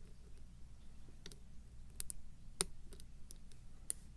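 Small, sharp metallic clicks at irregular intervals from a hook pick working the pins of a pin-tumbler challenge lock under tension.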